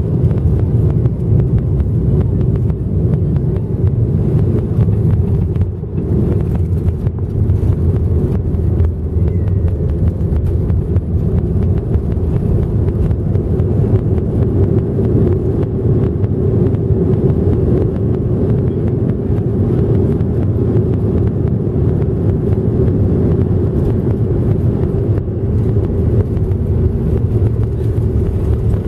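Boeing 737-700 on its landing rollout, heard from inside the cabin: a loud, steady low rumble of the jet engines and the wheels running on the runway, with a steady hum over it.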